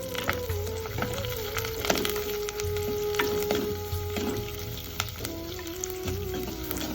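Dried fish frying in hot oil, a steady sizzle with scattered sharp crackles. Soft background music with long held notes plays under it.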